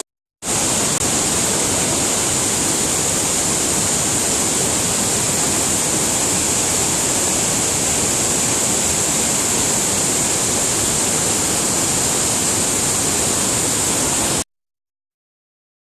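Floodwater rushing over a concrete weir in a steady, loud, hissing torrent. It starts about half a second in and cuts off suddenly near the end.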